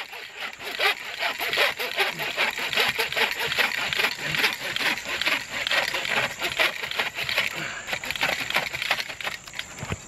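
A hand saw blade cutting through a thick, dry log in quick, even back-and-forth strokes.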